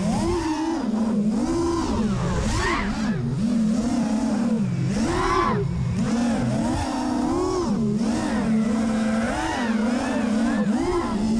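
Racing quadcopter's four DYS 2205 2300kv brushless motors spinning 5-inch three-blade props, a buzzing whine whose pitch rises and falls about once a second as the throttle is worked.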